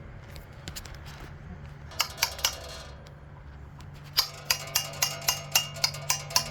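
Hammer blows on a steel punch or rod driven into the bread-packed pilot bearing bore, ringing metallically: three quick strikes about two seconds in, then a steady run of about ten strikes, roughly four a second. The bread packed in behind the rod builds pressure to push the pilot bearing out of the crankshaft.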